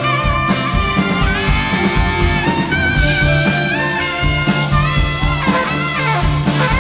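A band's recorded song in an instrumental passage: a wavering melodic lead line over drums and bass, with a steady beat.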